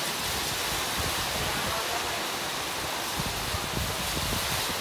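Steady rushing hiss of a rainstorm with gusty wind, the wind rumbling irregularly on the microphone.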